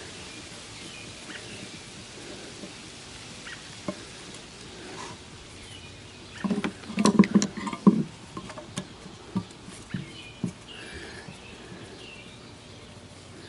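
Metal clicking and knocking on a cast-iron jointer base as a stuck part is worked by hand: a quick cluster of sharp knocks about halfway through, then a few single clicks, over a steady background hiss.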